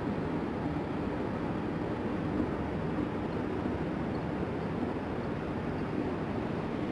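Steady room hum and hiss, unchanging, with no distinct event standing out.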